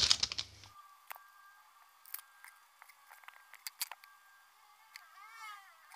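Hands handling a vape's small metal parts, with scattered light clicks and taps, after a brief rustle at the start and a short squeak about five seconds in.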